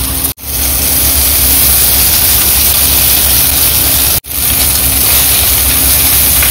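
Noodles and vegetables frying in a pan over a high flame: a loud, steady sizzle with a low rumble under it. The sound drops out abruptly for an instant about a third of a second in and again about four seconds in.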